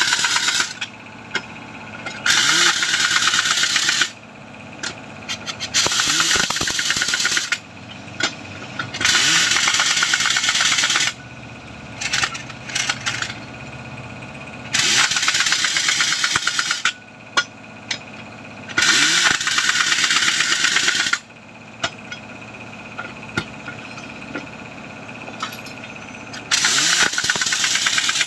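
Pneumatic impact wrench hammering on the bolts of an excavator track chain, in bursts of one to two seconds repeated several times. An engine runs underneath in the pauses.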